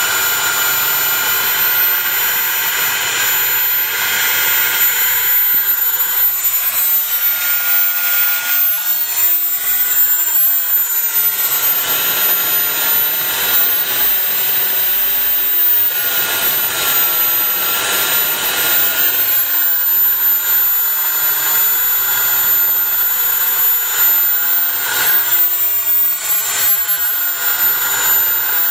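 JetCat model turbojet engine running steadily at about 85,000 rpm: a loud rushing hiss with a high whine on top, its pitch wavering slightly.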